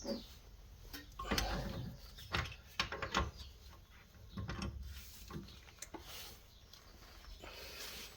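Scattered light knocks and clicks of hand tools on metal, a few each second, while bolts are worked loose on a car's front spindle.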